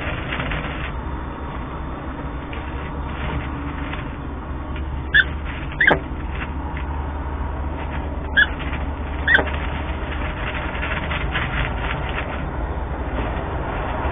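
A steady low hum and background noise, with four short bird calls in two pairs, the first pair about five seconds in and the second about eight seconds in.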